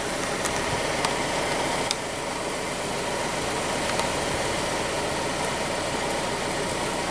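Car engine idling steadily, with a few faint clicks.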